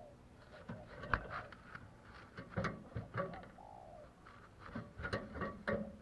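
Spotted dove giving soft, low cooing notes, mixed with several sharp clicks and knocks from the bird shifting about in its wire cage.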